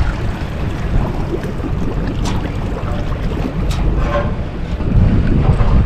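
Wind buffeting the microphone in a low, uneven rumble, with a few faint clicks.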